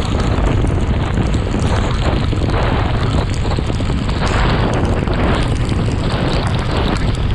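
Wind buffeting the microphone of a motorcycle riding at speed on a wet road in the rain, a steady loud rumble with the bike's running and tyre noise underneath.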